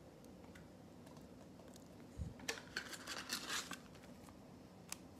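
Chrome trading cards handled by hand: a soft thump about two seconds in, then a second or so of light scratching and clicking as the cards slide and are set down, and a single click near the end.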